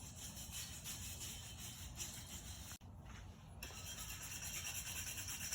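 Faint rubbing and scrubbing on the metal welds of a Ford 9-inch axle housing as they are cleaned, with a brief pause about halfway.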